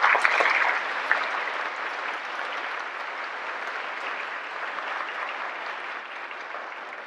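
A large audience of students applauding, loudest at the start, then slowly dying away toward the end.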